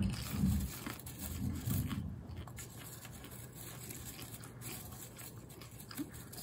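Popcorn being chewed, with a hand rustling through popcorn in a bowl: soft crunches and scattered crackles, denser in the first two seconds and then sparse.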